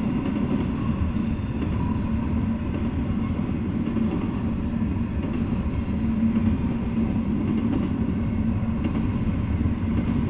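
Double-stack intermodal freight train rolling past, its steel wheels on the rails making a steady, unbroken rumble with a low drone running under it.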